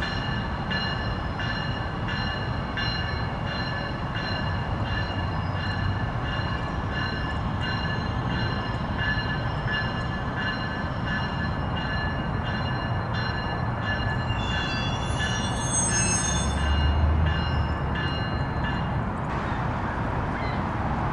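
Steady mechanical rumble with several high whining tones and a regular clack about every 0.7 s. The whine rises into higher squealing tones about 15 seconds in, with a louder low swell, and the clacking and whine stop about 19 seconds in.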